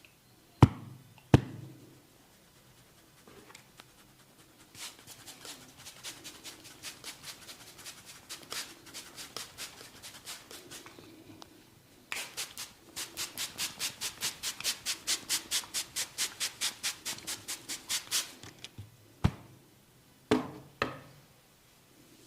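A barber's hands tapping and slapping rhythmically on a client's head and forehead during a head massage. A couple of loud sharp slaps come first, then a run of light strikes about four a second, then a louder, even run about five a second lasting some six seconds, and a few more sharp slaps near the end.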